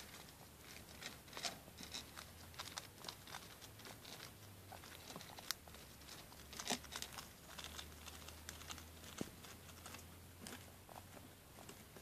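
Baby guinea pigs nibbling pellets and hay and shuffling on a plastic cage floor: quick, irregular small clicks, crunches and rustles.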